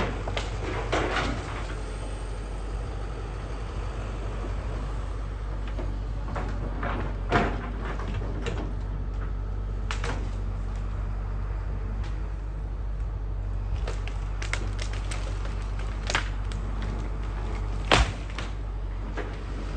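Kobelco excavator's diesel engine running steadily, with a few sharp cracks and knocks as its bucket and thumb grab and break branches and brush, the loudest one near the end.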